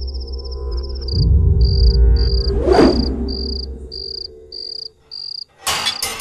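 Crickets chirping in a steady high trill that breaks into separate chirps about every 0.6 s, over a low sustained music drone that swells about a second in. A swish sweeps up and down near the middle. A short burst of rustling and clicking comes near the end.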